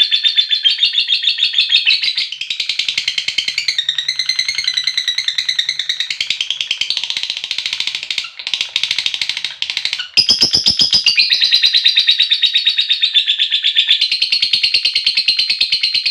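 Lovebird's long 'ngekek' chatter, a call to a companion: a rapid, buzzing run of high-pitched chirps repeated many times a second. It carries on almost without pause, with two brief breaks around the middle.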